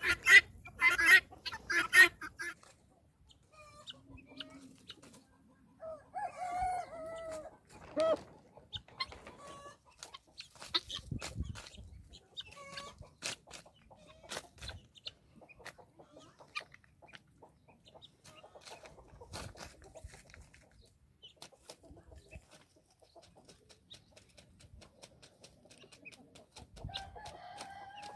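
A rooster and a flock of helmeted guinea fowl calling and clucking. A run of loud, rapid calls, about two a second, fills the first two seconds; after that come a few quieter drawn-out calls and scattered light ticks, with another call near the end.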